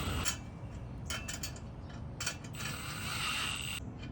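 Hand ratchet wrench clicking in a few short runs as a fastener is turned.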